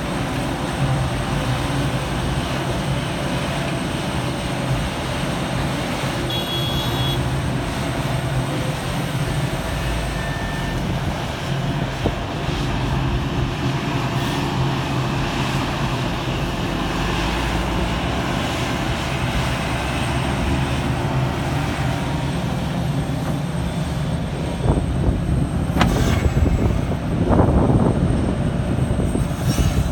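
Liebherr R 974 crawler excavator's diesel engine running steadily under load as it digs and swings soil into a dump truck. There is a sharp knock late on, and a louder rough stretch as the bucket digs into the ground near the end.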